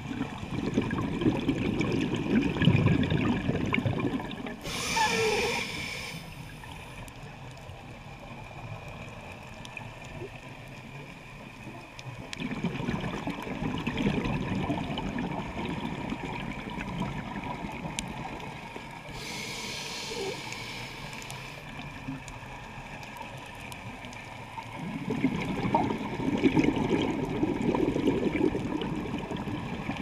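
Scuba regulator breathing heard underwater: two short hissing inhalations, about five and nineteen seconds in, with long low bubbling exhalations between them.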